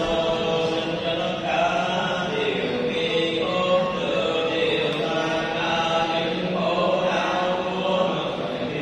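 Buddhist sutra chanting by monks and a lay congregation, many voices chanting together in a steady, unbroken flow.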